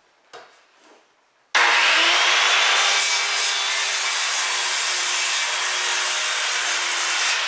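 Circular saw cutting across a 2x4 board: a steady, loud sawing noise that starts abruptly about a second and a half in and runs on for about six seconds.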